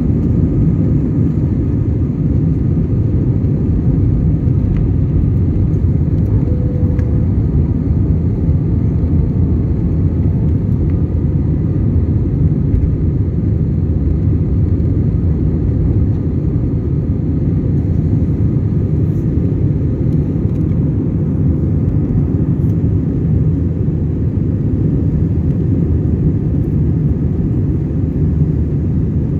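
Airbus A320's IAE V2500 turbofans at takeoff thrust, heard inside the cabin over the wing: a loud, steady low rumble with the rush of air, through lift-off and the initial climb.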